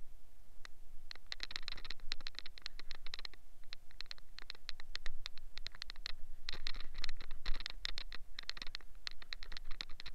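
Rapid scratching and scraping strokes in bursts, from a wet tyre and steel rim being scrubbed by hand.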